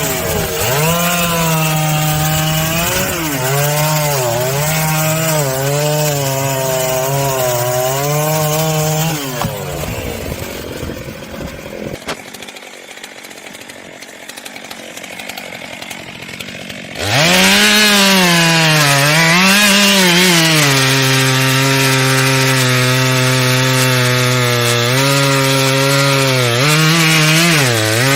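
Two-stroke chainsaw running at high speed, its pitch dipping and recovering as it loads up in the cut. It drops away to a quieter stretch partway through, then comes back abruptly, louder, still cutting.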